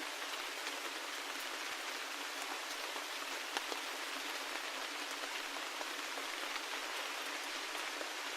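Steady rain: a dense, even hiss with scattered single drops ticking through it, one a little louder about three and a half seconds in.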